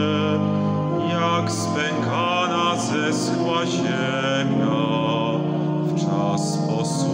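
A man singing a slow hymn with vibrato over sustained pipe organ chords.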